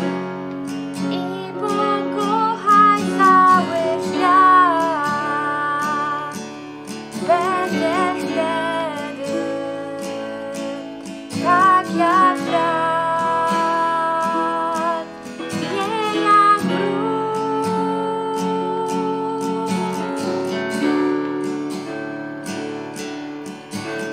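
Young female voices singing a slow song to acoustic guitar accompaniment, with one voice carrying the melody and others joining near the end.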